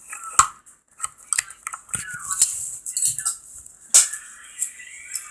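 Metal handcuffs clinking and clicking as they are put on and closed around the wrists, with scattered sharp clicks and two sharper snaps, about half a second in and about four seconds in.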